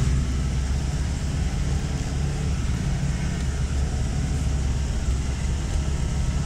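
Land Rover under way on a rough dirt track, its engine and running gear making a steady low rumble, heard from inside the vehicle.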